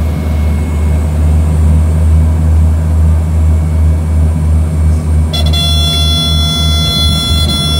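Seaplane's propeller engine droning steadily, low and loud, heard inside the cabin. About five seconds in, a steady high horn-like tone with several pitches joins it and holds to the end.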